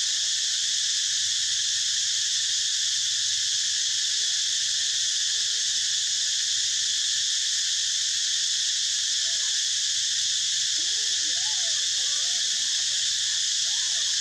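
Steady, unbroken high-pitched drone of an insect chorus. From about nine seconds in, faint short squeaky calls that rise and fall come through beneath it.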